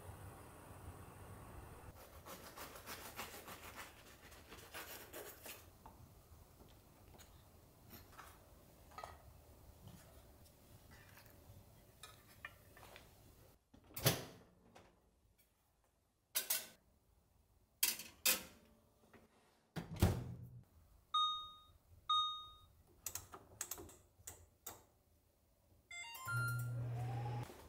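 Kitchen appliance being handled: a series of sharp knocks and clicks, then two short electronic beeps about a second apart. Near the end a low steady hum starts, as of an appliance running, and stops about a second later.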